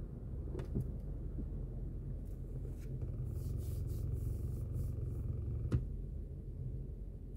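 Low, steady rumble of a car idling at a standstill, heard from inside the cabin, with a few light clicks. A passing car's hiss rises and fades around the middle.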